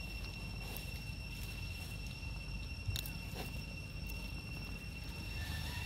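A steady, unbroken high-pitched insect drone, with a single sharp click about three seconds in.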